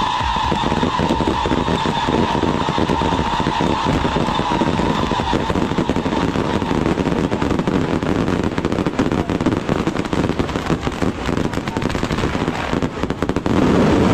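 Dense, rapid crackling of firecracker strings and fireworks set off as a procession salute, with a steady high whistle that fades out about five seconds in. The crackling swells into a louder rumbling burst near the end.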